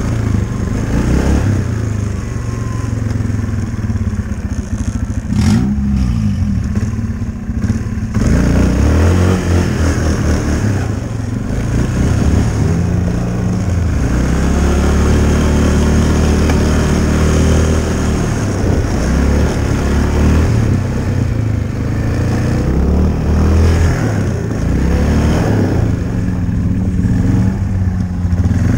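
Yamaha Kodiak 450 ATV's single-cylinder four-stroke engine running under throttle, its pitch rising and falling again and again as the quad is ridden and slid across ice and snow.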